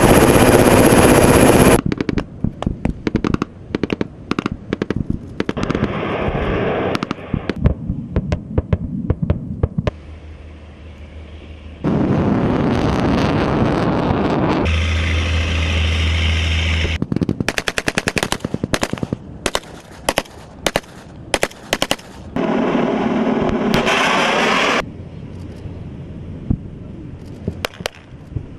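Military automatic weapons firing in bursts, with single shots and rapid strings of shots following one another in quick succession. Several stretches of loud steady noise break in among them, one with a low hum under it.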